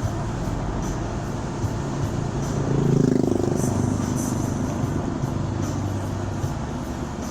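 Road vehicle engine and traffic noise running steadily, with a louder engine swell about three seconds in.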